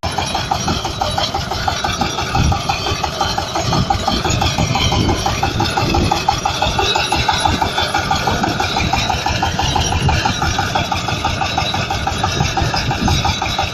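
Engine of a tractor and potato harvester rig running steadily, with a fast, even pulsing clatter.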